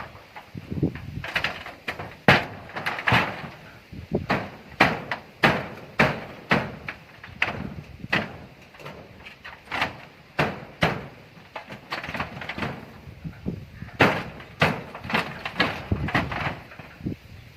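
Repeated knocking strikes, about one to two a second and fairly evenly spaced, each with a short ring after it.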